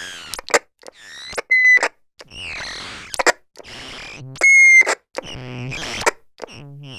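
Walkie-talkie transmissions: short bursts of garbled, radio-filtered voice and static, broken by sharp squelch clicks as the radio keys on and off. There are two steady beeps, a short one about one and a half seconds in and a louder, longer one about four and a half seconds in.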